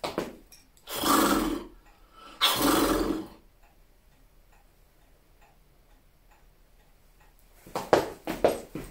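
Two loud bursts of horse noises, about a second each, from a man playing a horse while riding a hobby horse. Then a wall clock ticks faintly and evenly, and near the end quick clopping clicks start up again.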